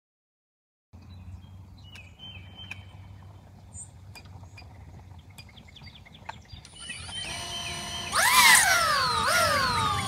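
DJI Avata FPV drone's four ducted-propeller motors spinning up from the ground: a high whine starts about two-thirds of the way in and swells, then climbs sharply and eases back twice as the throttle is blipped before lift-off. Before that, only a faint outdoor background with a few small ticks and chirps.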